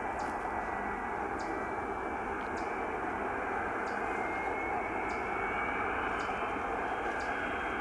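Jet engines of a taxiing Boeing 757-200 running at low power: a steady roar with a faint high whine that rises slowly.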